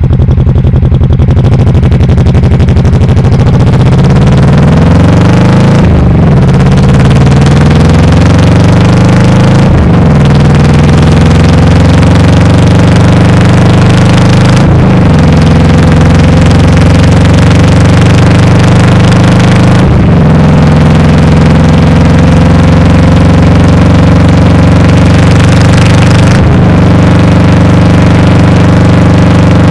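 Honda Shadow VT1100 V-twin engine and exhaust, picked up loud and overdriven by a lapel mic clipped to the licence plate with too much gain. The engine accelerates, rising in pitch over the first few seconds, then pulls at a fairly steady pitch with brief dips about every four to six seconds.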